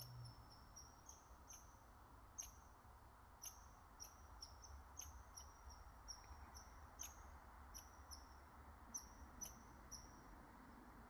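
Faint high-pitched chirps from a small animal, repeated at about two a second with uneven spacing, over a low steady hum.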